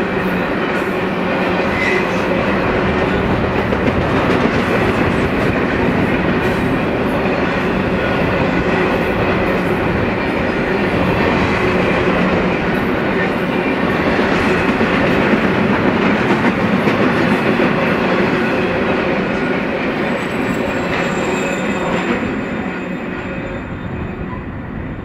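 Double-stack intermodal container cars of a BNSF freight train rolling past: a steady rumble of steel wheels on rail with a running clatter of clicks. The sound falls away near the end as the last car passes and the train moves off.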